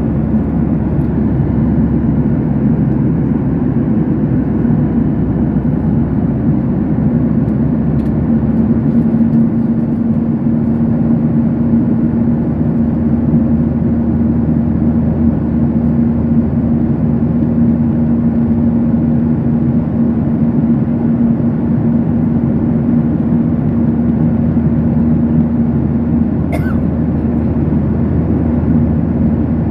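Airliner cabin noise in flight: a steady rush of jet engines and airflow with a low steady hum. A brief faint click sounds near the end.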